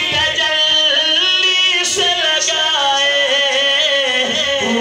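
A man singing a naat (devotional Urdu/Punjabi poem) into a microphone, drawing out long, wavering notes without clear words.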